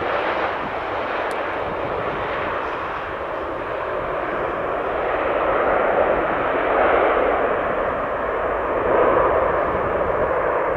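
Airbus A350-900 Rolls-Royce Trent XWB jet engines during the landing roll just after touchdown. A steady rushing jet noise swells about six seconds in and again near the end.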